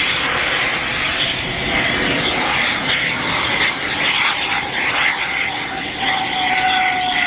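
Hybrid rocket motor (paraffin/ABS fuel grain burning with oxygen) firing with a steady, loud, rough rushing roar of exhaust, its graphite nozzle already blown out so the chamber vents straight through the open bottom. A faint steady tone joins in near the end.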